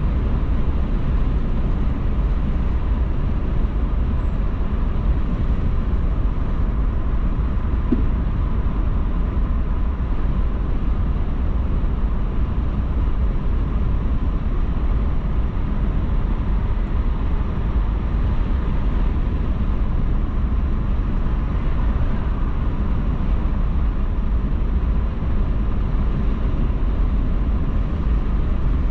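Steady road and engine noise of a car driving, a continuous low rumble with tyre hiss and no changes.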